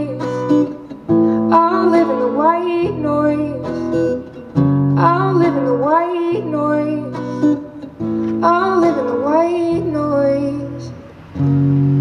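Live solo song: a woman singing over her own strummed acoustic guitar. Her voice stops about ten and a half seconds in, leaving the guitar chords ringing on alone.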